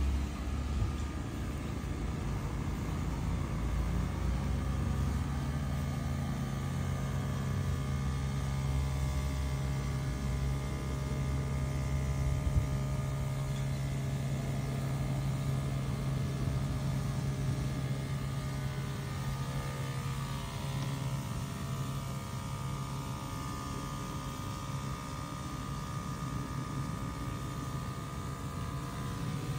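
Small electric pump of a hand-carried battery-powered sprayer running with a steady hum while it sprays liquid through the wand.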